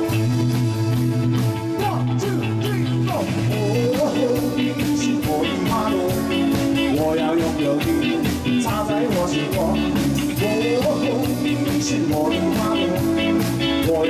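Live rock band playing an instrumental passage: drum kit keeping a steady beat under electric guitars and keytar.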